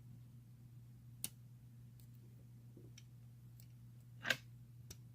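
Small metal clicks and ticks of a pick working the pins of an ACE II tubular padlock under a tension wrench: a sharp click about a second in, a few faint ticks, and a louder, slightly longer click near the end, over a low steady hum.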